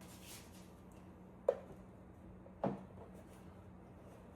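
Two short, light knocks about a second apart as things are handled in a kitchen, over a faint steady hum.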